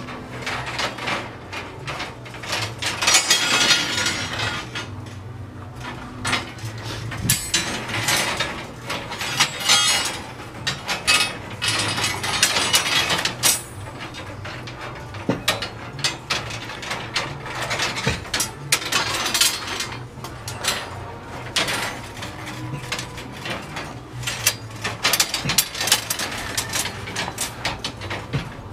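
Steel rebar and stirrups of a column cage clinking and scraping against each other as they are handled, in irregular bursts of metallic rattling.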